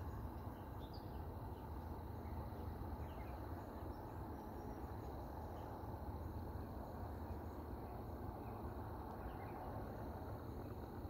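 Steady faint outdoor background hiss with scattered short, faint bird chirps throughout.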